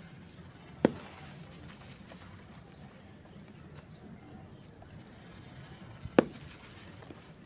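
Chunks of a dry, crumbly sand-cement block being handled over loose powder, with two sharp cracks about five seconds apart: one about a second in and one near the end.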